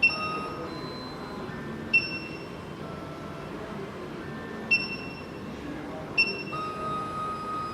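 SEC-E9 key cutting machine during clamp calibration: four short electronic beeps a second or two apart, with a faint motor whine that steps from one pitch to another as the machine moves, settling into one steady tone near the end.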